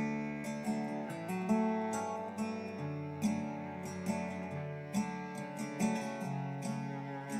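Background music: acoustic guitar, plucked notes and strummed chords at an easy, steady pace.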